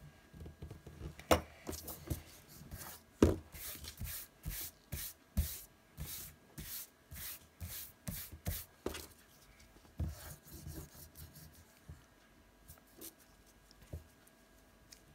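Pencil and eraser working on drawing paper: a run of scratchy rubbing strokes, about two a second, that stops about nine seconds in, followed by a few faint scrapes.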